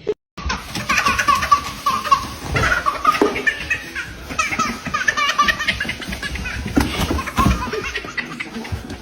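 A baby laughing repeatedly over background music.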